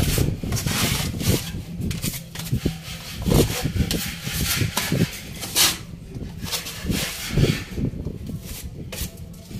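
Hand scraper scraping and rubbing in irregular strokes as gum screeding paste is scooped from a plastic bucket and spread over a wall, with a few louder scrapes along the way.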